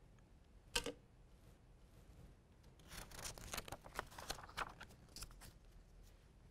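Faint paper rustling and crackling of a picture-book page being turned, a cluster of small crinkles between about three and five seconds in. A single light click comes just under a second in.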